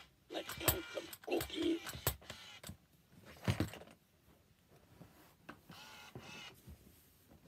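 Count 'n Crunch Cookie Monster animatronic plush toy's mechanism clicking and creaking for the first two seconds, then scattered knocks and rubbing as the plush is tipped over and handled, the loudest knock about three and a half seconds in.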